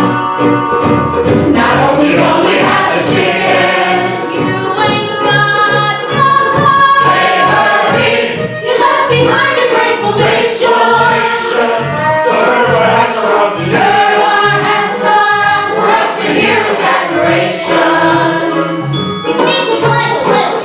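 Live stage musical number: a band plays a bouncy tune over a steady, pulsing bass line, with an ensemble chorus singing along.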